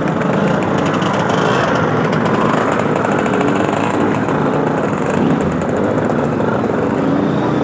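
Small two-stroke engines of classic scooters running steadily.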